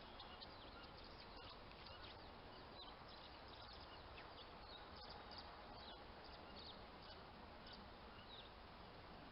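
Faint outdoor ambience: many short, high bird chirps scattered throughout, over a steady low rumble of distant highway traffic.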